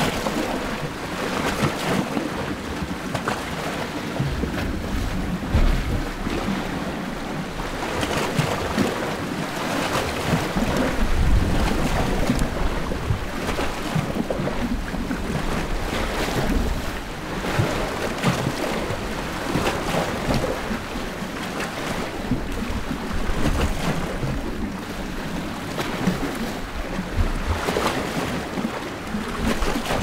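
Small Mediterranean sea waves washing and lapping on a rocky shore, heard from just above the water: a continuous wash that swells every few seconds.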